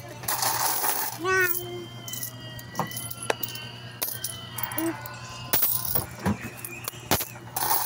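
Metal peso coins clinking against each other and clicking onto a wooden floor as they are sorted and counted by hand, in a run of irregular sharp clicks.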